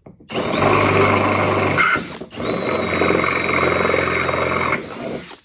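DCK 20V brushless cordless drill running under load, enlarging a pilot hole with a larger bit, in two long runs with a brief stop about two seconds in.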